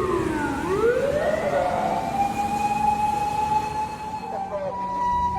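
Japanese fire engine siren wailing: the pitch drops low, sweeps back up and holds high for a few seconds. Near the end a two-tone hi-lo siren of the kind Japanese ambulances use comes in.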